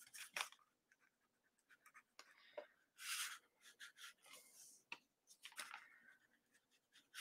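Faint scratchy strokes of a nearly dry paintbrush dragged and dabbed across a small painted ornament, in a few short brushy bursts, the clearest about three seconds in.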